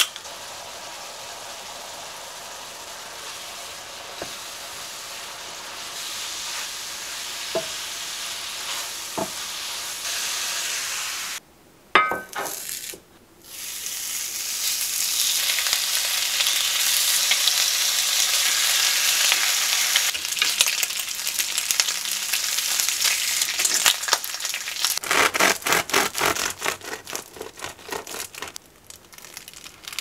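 Sliced mushrooms and onion sizzling steadily in an oiled frying pan. After a short break with a clink, bacon strips sizzle more loudly in a rectangular egg pan, with a run of sharp crackles near the end.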